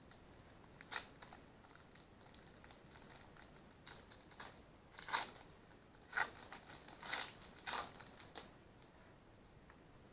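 Sports card pack wrapper crinkling and tearing as it is opened and the cards handled, in a string of short, sharp rustles.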